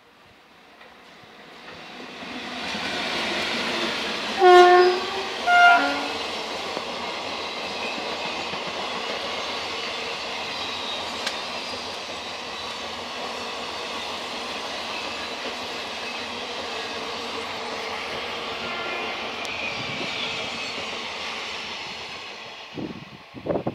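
Indian Railways electric passenger train approaching and passing: the locomotive sounds its horn in two short blasts about a second apart, then the coaches roll by with a steady rush of wheels on the rails that dies away near the end.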